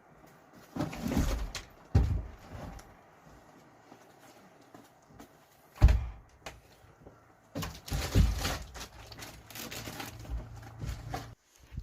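Handling noises of a tarp being put up: scattered knocks and thumps with stretches of rustling, and a faint low steady hum late on that stops suddenly.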